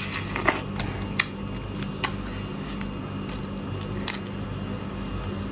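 Shrimp shell cracking and snapping as a raw marinated shrimp is bitten and peeled by hand: a scatter of sharp, crisp clicks over a steady low hum.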